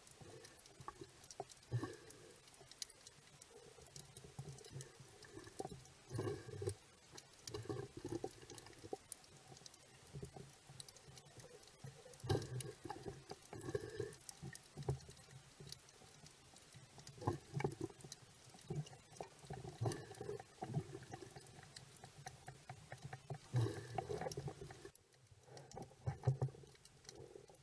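Underwater sound over a shallow coral reef picked up by the camera: a constant scatter of small clicks and crackles, with irregular soft sloshing swells of water every second or two.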